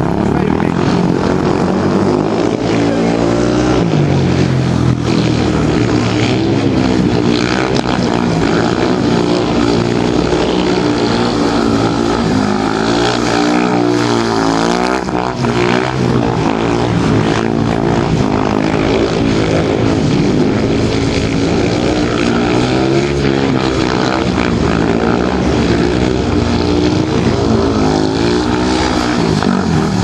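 Speedway motorcycle's 500 cc single-cylinder methanol engine running loud and hard, its pitch repeatedly rising and falling as the throttle is worked.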